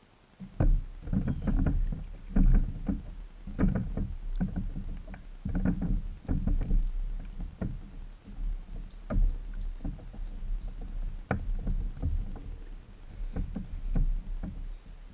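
Irregular wooden knocks and clunks on a small homemade catamaran, as a person moves about its plywood deck and handles the gear beside its fiberglass-covered pine paddle wheel. The knocks come in quick clusters, thinning out in the second half.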